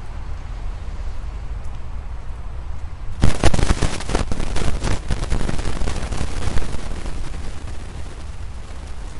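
Wind buffeting the microphone: a steady low rumble, then about three seconds in a loud, crackling gust that lasts about four seconds before easing off.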